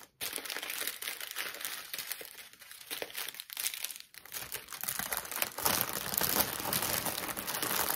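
Small plastic bags of diamond painting drills and a clear plastic packaging sleeve crinkling as they are handled and pushed back into the package. The crackling is irregular and gets busier and a little louder in the second half.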